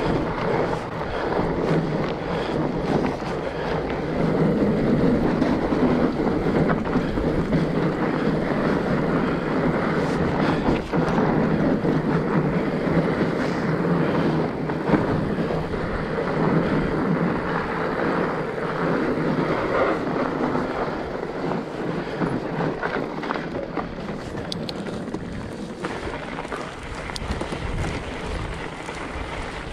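Fat bike being ridden along a trail: steady noise of the wide tyres rolling over the ground and wind on the microphone, with scattered short knocks from the bike. It eases a little near the end.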